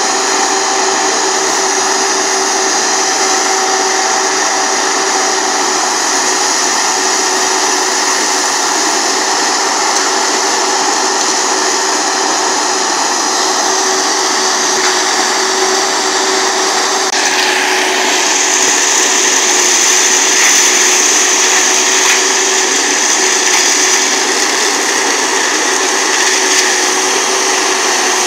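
Galotrax 300 tracked forestry mulcher running under load as its rotor grinds brush and branches, a loud, steady mechanical whir. Partway through the sound shifts and a strong high whine comes in for several seconds.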